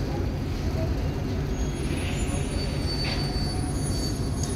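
Deep, steady rumble of a large passenger ship's engines as it manoeuvres close off the quay, with thin high squealing tones over it from about halfway through.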